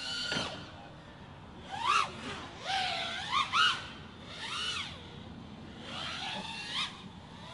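FPV freestyle quadcopter's brushless motors and props whining, the pitch sweeping sharply up and down several times as the throttle is punched and chopped.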